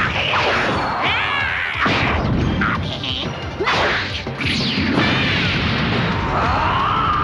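Cartoon fight sound effects: quick whooshes and punch impacts, mixed with the fighters' grunts. Near the end a long yell rises and holds.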